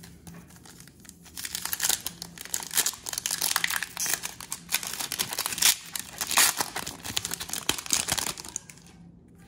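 Foil wrapper of a Panini Prizm Draft Picks football card pack being torn open and crinkled by hand: a dense run of sharp crackling that starts about a second in and stops shortly before the end.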